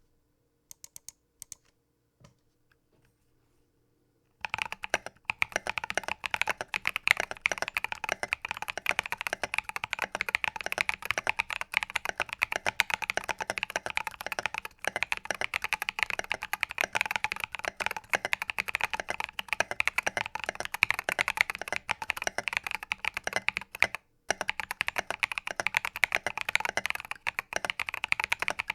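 Typing on a custom mechanical keyboard with lubed Holy Panda tactile switches, a brass plate and SA-profile keycaps in a foamed polycarbonate tenkeyless case. A few single keystrokes come first, then fast continuous typing from about four seconds in, with one brief pause late on.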